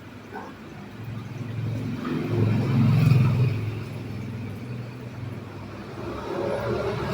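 Low rumble of a passing motor vehicle, swelling to a peak about three seconds in and then easing off.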